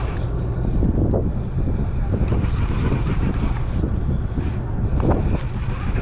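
Steady low rumble of the boat's engine, with wind buffeting the microphone.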